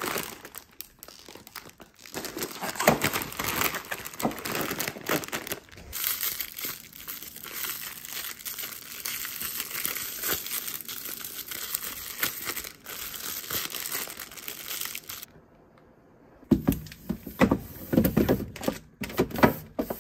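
Plastic instant-noodle wrappers crinkling and rustling as the packets are handled, and an empty bibim-myeon packet is crumpled and folded into a ddakji. After a brief pause near the end come several sharp knocks and thuds.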